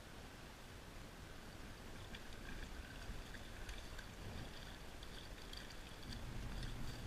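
Faint, steady rush of river water flowing, with light scattered clicks from about two seconds in and a low rumble coming up near the end.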